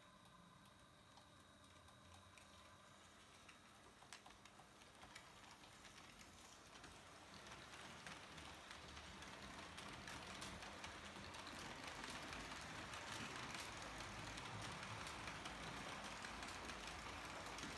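H0-scale model diesel railcar train (Roco VT 11.5 TEE) rolling along the track: faint clicking of the small wheels with a running noise that grows steadily louder over the second half as the train comes past.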